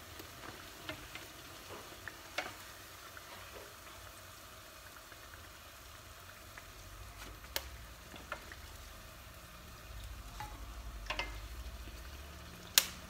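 Youtiao (fried dough sticks) deep-frying in hot sunflower oil in a wok, a steady sizzle, with several sharp clicks of chopsticks knocking against the wok as the sticks are turned, the loudest near the end.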